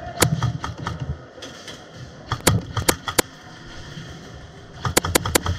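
Airsoft guns firing a string of sharp snapping shots in three bunches: about four over the first second, three spaced shots around the middle, and four quick ones near the end.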